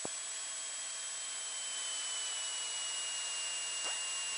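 Steady hiss of a Cessna 172's cockpit in cruise descent, engine throttled back to about 1,500 RPM, heard through the cockpit audio feed with hardly any low rumble. A faint high whine slides slightly lower throughout, with a soft click at the start and another near the end.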